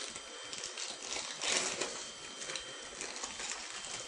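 Crinkling and rustling of a plastic cheese-slice wrapper being peeled off by hand, in irregular crisp bursts, loudest about a second and a half in.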